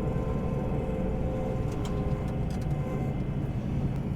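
A vehicle engine running steadily: a low drone with a faint steady whine over it and a few faint ticks.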